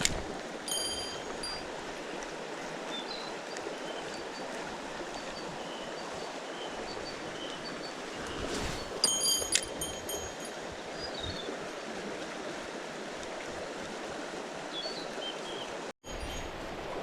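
Mountain stream flowing steadily, with bright metallic jingling a few times: at the start, about a second in, and again about nine seconds in. Faint short chirps come and go over the water.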